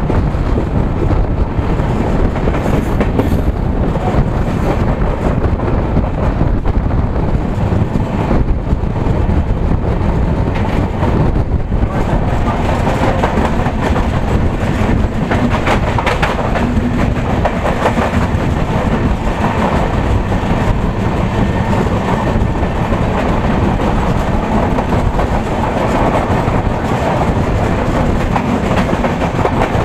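A moving passenger train's wheels running on the track, with a steady clickety-clack and rushing air on the microphone. From about 12 seconds in, another train passing close on the next track adds a louder, sharper rattling clatter.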